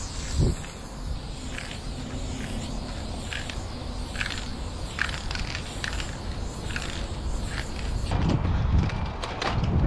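Aerosol spray paint can hissing as black fill-in is sprayed onto the wall, with small clicks scattered through. About eight seconds in, a louder low rumble with knocks takes over.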